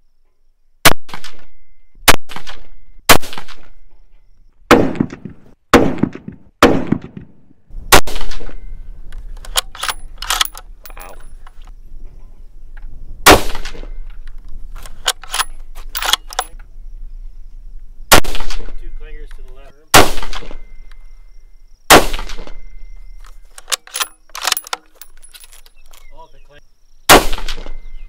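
About a dozen sharp, very loud 6.5 Creedmoor rifle shots from Howa 1500 bolt-action rifles, irregularly spaced one to five seconds apart, with fainter cracks and clicks between them.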